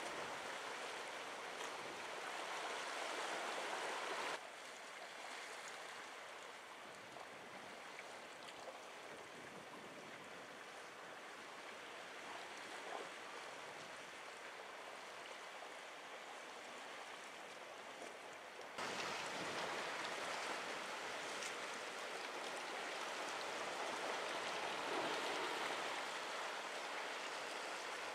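Sea water washing and lapping against rocks on a rocky shore, a steady hiss of surf. It drops abruptly quieter about four seconds in and comes back louder near the nineteenth second.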